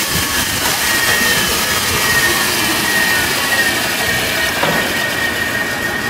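Fortuna universal hydraulic cylindrical grinder running: a steady high whine over a loud mechanical hiss.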